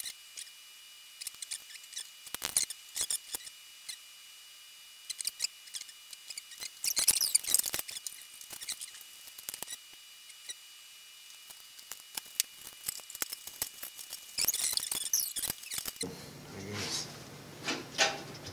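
Wooden modelling tool scratching and clicking against a small clay sculpture as little arcs are carved into it, in short scratchy strokes, with denser bursts of scraping about seven seconds in and again near the end.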